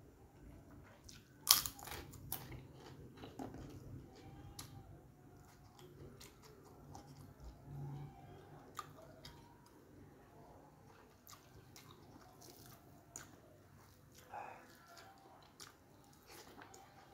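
Eating sounds from a crisp kerupuk cracker: a few sharp crunches about a second and a half in, then quieter chewing with small scattered clicks.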